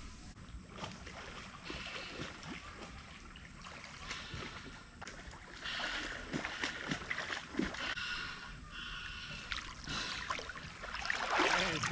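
Water splashing and lapping around a small inflatable boat on a river, in irregular small splashes with no steady motor.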